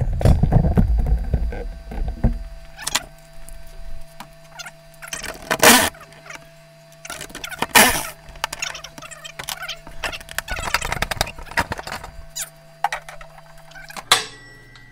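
Cordless impact driver hammering on a bolt for about the first two seconds, then stopping. After that come scattered sharp metal clinks and knocks of the socket, bolts and tool being handled, two of them louder, over a faint steady hum.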